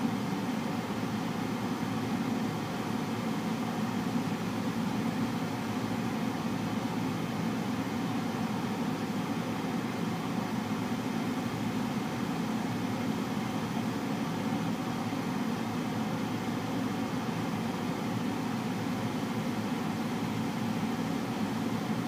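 Car air conditioner/heater blower running steadily, a low, even rush of air through the vents.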